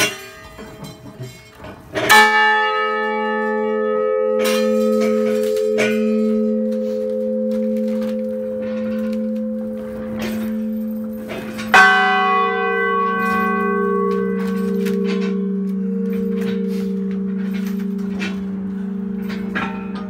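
Large church tower bells rung up close, gently: one bell is struck about 2 seconds in and rings on with a long, steady hum, then a second, lower-pitched bell is struck near the middle and rings on over the first. A few small knocks from the bell mechanism come before the first strike.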